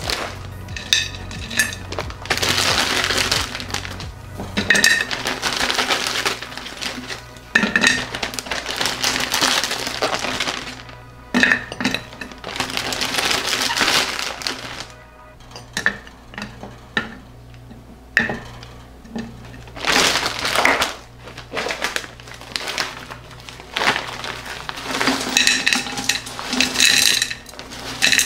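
Frozen green ume plums and chunks of rock sugar dropping into a large glass jar in repeated bursts, clattering and clinking against the glass and each other, with a plastic bag crinkling. Background music plays underneath.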